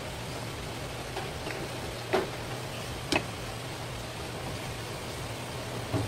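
Steady background hiss with a low hum, and two short sharp knocks about a second apart, a couple of seconds in, from a knife and a stainless steel tray being handled on a cutting board.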